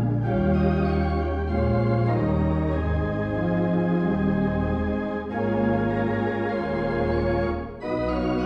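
Church organ playing slow sustained chords over deep held bass notes that change every second or so, with a brief break between phrases shortly before the end.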